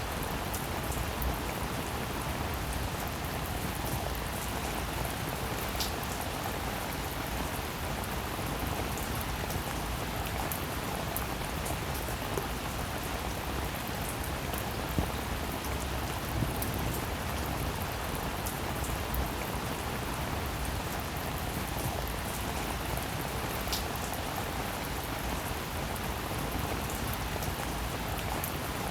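Steady rainfall: an even hiss of rain with many small drops ticking through it and now and then a louder single drop.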